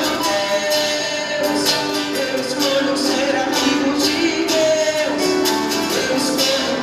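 Live band music with guitar and a steady beat, some singing over it.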